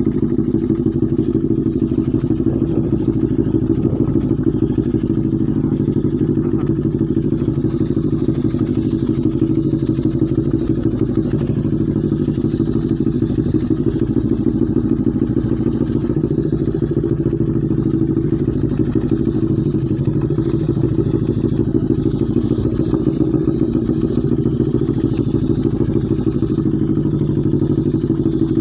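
Motorcycle engine running steadily at low speed while riding over a rough dirt and gravel trail, heard from the rider's own bike.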